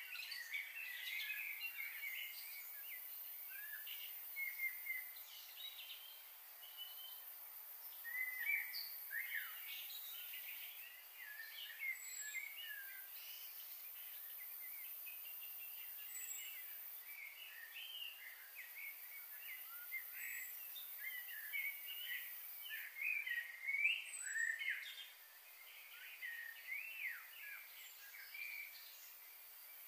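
Small birds chirping and calling on and off, many short chirps overlapping, with a steady high hiss behind them.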